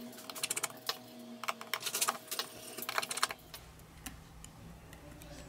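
Light clicks and taps of a precision screwdriver undoing the tiny screws inside a OnePlus 3T, fast and irregular for about three seconds, then only a few scattered clicks.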